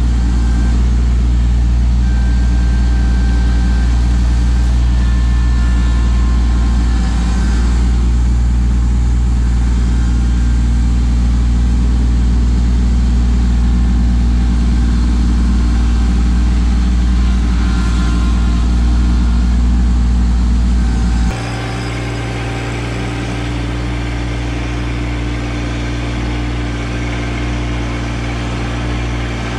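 Kubota LX2610 compact tractor's diesel engine running steadily while the loader grapple handles brush. The sound drops abruptly in level and changes character about two-thirds of the way through, then runs on steadily.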